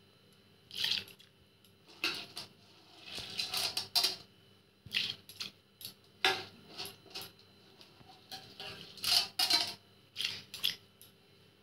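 Washed masoor dal tipped into a metal kadhai of water: an irregular run of splashes and clinks of the vessel against the pan. Near the end a hand stirs the lentils in the water.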